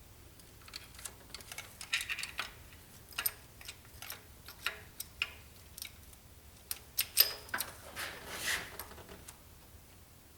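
Light metal clicks and clinks of timing-chain parts being handled and fitted by hand on an engine, irregular and scattered, the loudest about seven seconds in, with a short rattle a second later.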